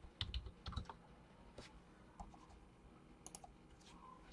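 Faint, scattered clicks of computer keys, a few at a time with short gaps between them.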